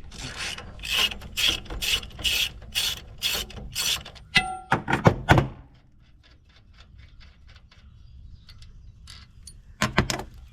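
Hand work on steel: rhythmic scraping strokes, about three a second, plausibly a file cutting down an oversized shaft key to fit the keyway. About four and a half seconds in, a sharp metallic clink rings briefly, followed by a few more strokes, faint clicks, and two last strokes near the end.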